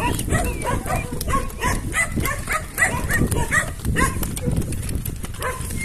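Pony cart rolling along a dirt road: a steady rumble under short, high squeaky sounds that repeat about three times a second.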